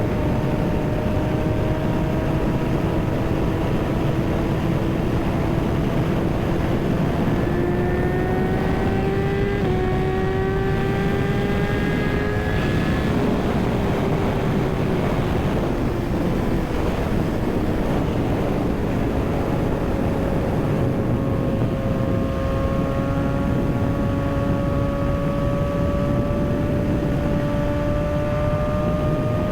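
Kawasaki ZX-6R's inline-four engine running under way, its note climbing slowly for about the first thirteen seconds, then dropping off, holding lower for a while and climbing again near the end, over a heavy rush of wind noise.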